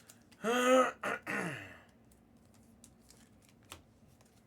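A man's brief wordless vocal sound, like clearing his throat or a short hum, in the first two seconds, followed by faint scattered clicks.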